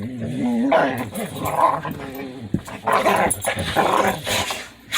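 Two dogs playing, growling at each other in wavering, pitched grumbles, mixed with several sharp, noisy sneezes and snorts.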